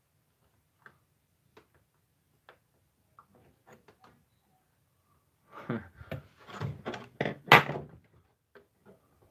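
Scattered light clicks, then a short run of knocks and clatter of things being handled, with one sharp knock the loudest, a little before the end.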